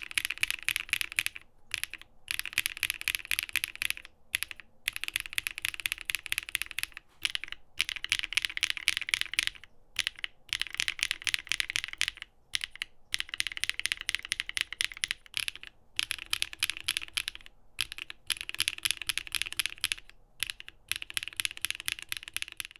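Fast typing on a mechanical keyboard: runs of rapid keystrokes lasting a second or two, separated by brief pauses.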